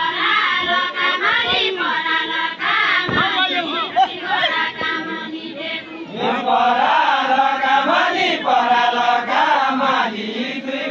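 Group of men singing a deuda, the far-western Nepali folk song of the deuda dance, together in a chanting style. The massed voices grow louder about six seconds in.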